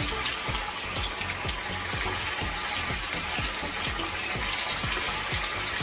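Pieces of stuffed colocasia-leaf rolls deep-frying in hot oil in a kadai: a steady sizzle with fine bubbling.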